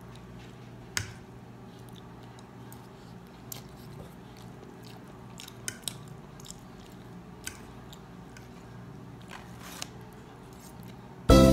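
Close-up eating sounds of a man chewing noodles, with a few scattered sharp clicks of a metal fork against the plate, the loudest about a second in. Music starts just before the end.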